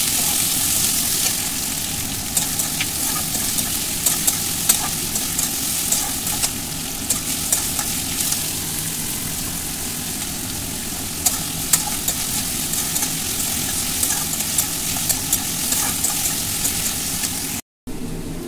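Sliced onions frying in oil in a kadai, sizzling steadily, with scattered clicks and scrapes of a metal spatula stirring them. The sound cuts out suddenly near the end.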